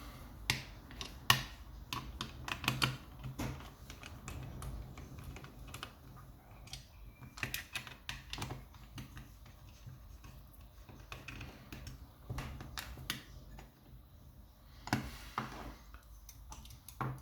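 Irregular small metallic clicks and clinks of an opened ERA Viscount lever mortice lock and its steel levers being handled and taken apart.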